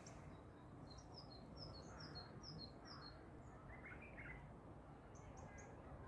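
Small songbirds singing faintly: a rapid series of thin, high, down-slurred notes for about two seconds, a short lower warble about four seconds in, then three quick high notes near the end, over a steady low rumble.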